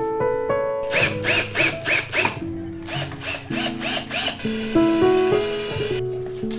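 Cordless drill/driver driving screws: two runs of rapid repeated ratcheting clicks, about three a second, typical of the clutch slipping as a screw seats. Light acoustic guitar music plays underneath.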